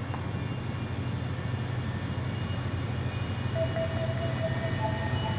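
Grid-scale liquid air energy storage plant running just after start-up: a steady low hum under an even rushing noise as the plant vents a plume of vapour. A faint steady tone joins about three and a half seconds in.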